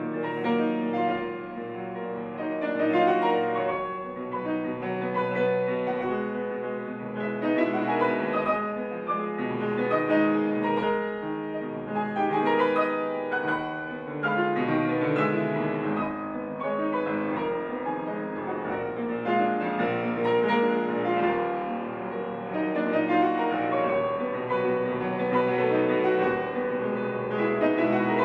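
Solo classical piano on a grand piano: a dense, unbroken passage of many notes, swelling and easing in loudness every few seconds.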